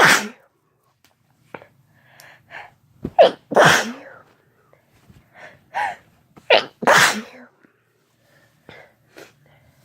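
A person sneezing: the tail of one sneeze at the very start, then two more sneezes, about three and a half and seven seconds in. Each is preceded by a sharp in-breath.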